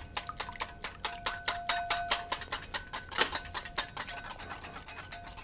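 A stainless steel wire whisk beating a thin mayonnaise-based sauce in a glass mixing bowl. The wires click against the glass several times a second in a steady rhythm, and the bowl rings faintly.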